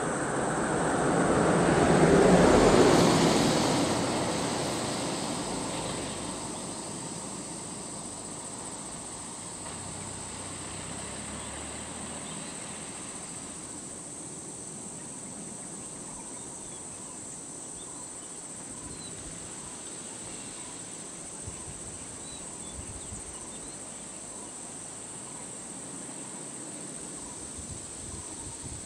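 A vehicle drives past close by, its engine and tyre noise swelling to a peak a couple of seconds in and fading away. After that there is steady outdoor background with a constant high insect hiss and faint, evenly spaced chirps.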